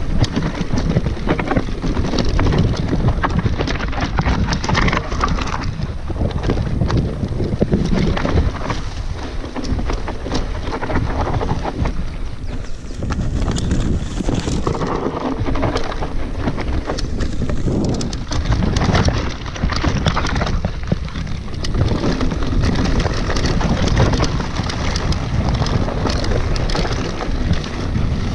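Wind buffeting the camera microphone as a Cannondale mountain bike rolls down a grassy singletrack, with tyres and frame brushing through tall grass and the bike rattling and knocking over bumps.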